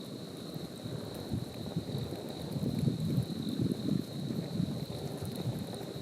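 Wind buffeting the microphone in uneven gusts, strongest in the middle, over a steady high chirring of crickets and faint ticking crackles from the campfire.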